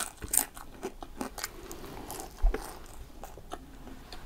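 A person biting and chewing fries, with many small mouth clicks. A single dull thump about two and a half seconds in is the loudest sound.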